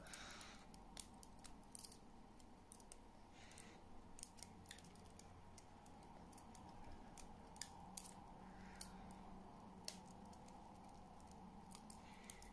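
Faint handling noise of bait elastic being wound around a squid bait on a hook: scattered small clicks and ticks over near silence.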